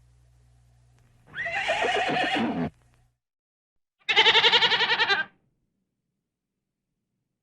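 A horse whinnies briefly about a second in. Then, about four seconds in, a goat gives one louder, quavering bleat lasting just over a second.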